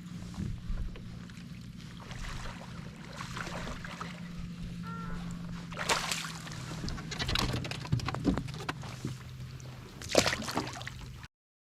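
Sounds aboard a fishing kayak on the water: a steady low hum under scattered knocks, splashy rustles and gear handling, the loudest knock about ten seconds in. The sound cuts off abruptly near the end.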